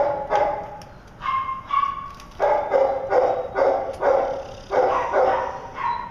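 Dog barking repeatedly, a string of short high barks coming two to three a second in bursts with brief pauses between.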